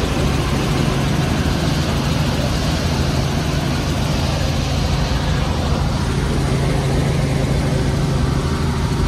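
Helicopter in flight, heard from inside the cabin: a steady drone of engine and rotor, a low hum under a wide rushing noise.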